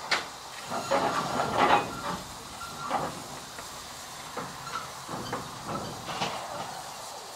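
Saddle-tank steam locomotive letting off steam in short, irregular bursts of hiss. The louder bursts come in the first two seconds and fainter ones follow later.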